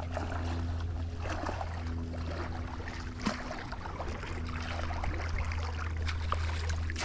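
A steady low engine drone with a rushing noise over it and a few small clicks.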